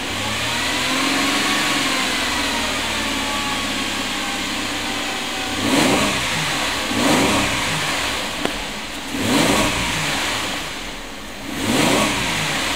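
2005 Holden Commodore's 3.6-litre V6 heard from inside the cabin, held at raised revs in Park for about five seconds, then revved four times, each rev rising and falling back.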